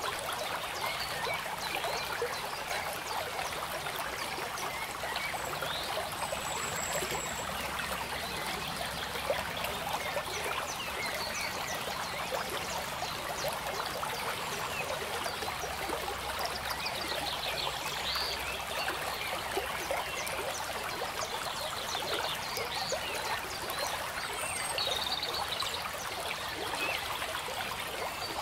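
Steady trickling, stream-like water sound, crowded with tiny ticks, with scattered short high chirps, some in quick runs.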